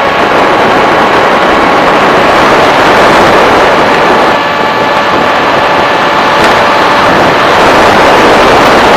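Electric motor and propeller of an FPV model aircraft in flight, a steady whine over a loud, even rush of noise.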